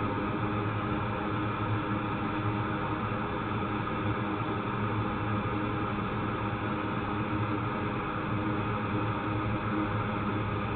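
Steady hum with a hiss of noise, unchanging throughout.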